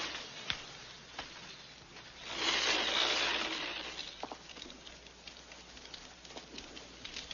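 Burning fire trails hissing and crackling, with scattered sharp crackles and a swell of hissing about two seconds in that fades over the next two seconds.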